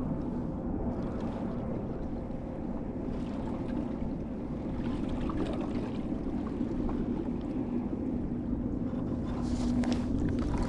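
Wind buffeting the microphone, a steady low rumble with a faint even hum underneath.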